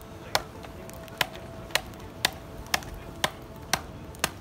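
Sharp, evenly spaced knocks of a tool striking wood, about two a second, eight strikes in all.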